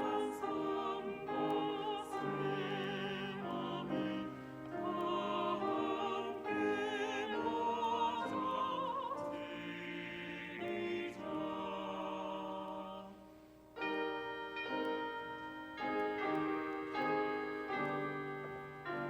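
Church choir singing a hymn over piano accompaniment, the voices wavering with vibrato. About two-thirds of the way through, the singing breaks off and the piano plays on alone in struck chords.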